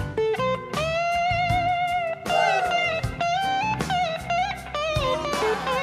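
Electric guitar solo on a cherry-red Gibson SG over a rock band's drums, with long held notes that waver in pitch and notes that slide down in pitch about two and a half seconds in.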